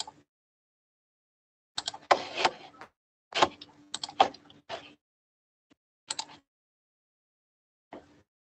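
Several short, irregular bursts of clicks and knocks with dead silence between them, as picked up by a noise-gated online-call microphone.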